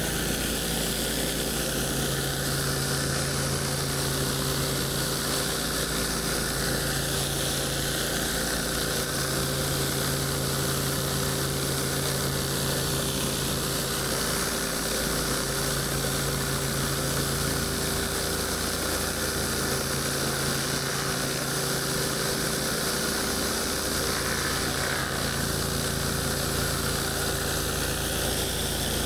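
An 8 GPM pressure washer's engine running steadily under load, with the constant hiss of high-pressure water spraying onto concrete.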